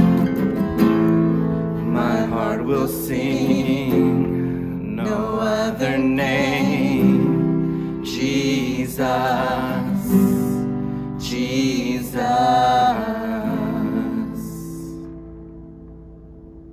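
Worship band playing a slow song on acoustic guitar and keyboard, with female voices singing long, wavering notes. The last chord dies away about fifteen seconds in, leaving it much quieter.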